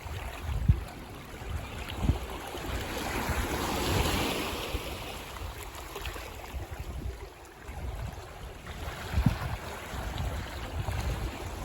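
Sea waves washing on a beach, one wave swelling up about four seconds in and then drawing back. Wind buffets the microphone with a few low thumps.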